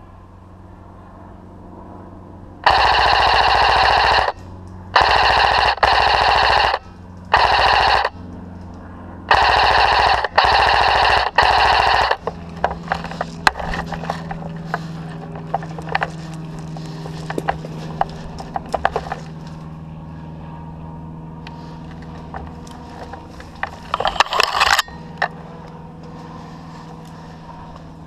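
Airsoft rifle firing on full auto in several rattling bursts of one to two and a half seconds, close together in the first half. These are followed by scattered sharp clicks and snaps and one more short burst near the end.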